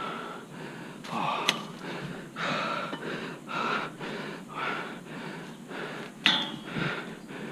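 A hiker breathing hard, gasping in and out about once a second from the exertion of climbing steep stairs in the heat. Two sharp ticks stand out over the breathing, one a second and a half in and a louder one near the end.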